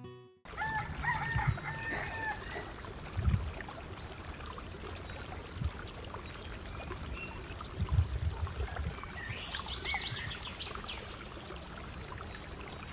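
Guitar music cuts off at the start, giving way to outdoor ambience with animal calls: a short two-part pitched call about a second in, then high chirping calls around five seconds and again a few seconds later. Scattered low thumps sound underneath.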